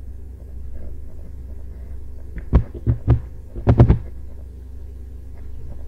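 A quick run of about six sharp taps or knocks, starting about two and a half seconds in and lasting just over a second, over a steady low hum.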